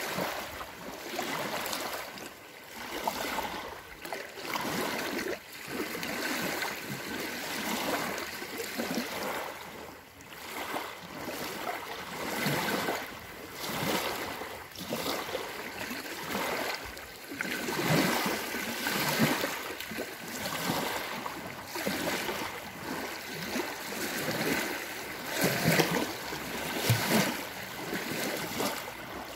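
Small lake waves lapping and breaking on a sandy shore, rising and falling in uneven surges, with a few louder splashes near the end.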